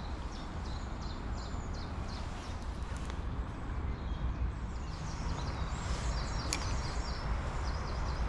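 A small songbird singing runs of quick repeated high notes, twice, over a steady low outdoor rumble; a single sharp click comes about six and a half seconds in.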